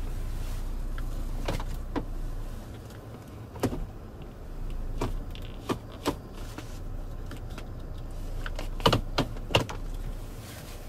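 Clicks and knocks of a 2014 Opel Mokka's automatic gear selector being moved through its gate, in small groups, the loudest cluster of three near the end, over a steady low hum in the car's cabin.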